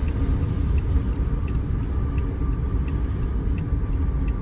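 Steady low rumble of a car's engine and road noise heard from inside the moving cabin.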